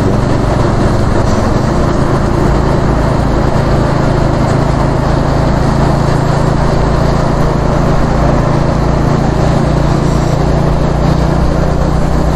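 Suzuki GS150 motorcycle's single-cylinder four-stroke engine running at a steady cruise, under constant wind and road noise.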